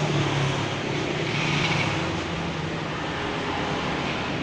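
MAILTank SH 119 10mm corded electric drill running steadily, its motor hum wavering slightly in pitch.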